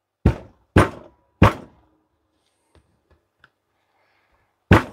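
Sharp knocks on a laptop charger's plastic case, struck to jar its seam open: three in quick succession, a few faint clicks, then one more knock near the end.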